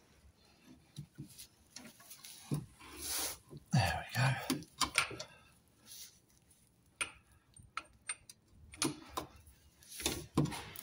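Irregular clicks and metal knocks of a socket and breaker bar turning a tight 24 mm bolt as the new rear lower shock bush is drawn into its mounting.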